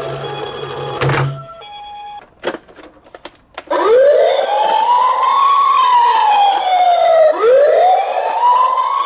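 Electronic wail siren of a toy emergency vehicle: about four seconds in it sweeps quickly up, then falls slowly, and it begins a second cycle near the end. Before it, a steady electronic tone pattern stops about a second in, and a couple of sharp clicks sound.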